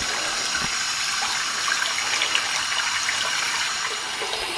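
Water running steadily from a bathroom faucet into a sink with its drain plug closed, the stream pouring into the rising water as the basin fills.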